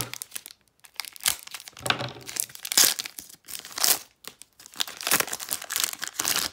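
Foil wrapper of a football card hobby pack crinkling and tearing as it is handled and opened by hand, in a series of irregular bursts.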